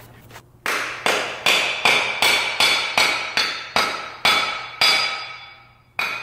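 Repeated sharp metal-on-metal strikes, about two or three a second, each ringing briefly. A screwdriver is being struck into the seam of a welded differential's cover to pry it off the housing.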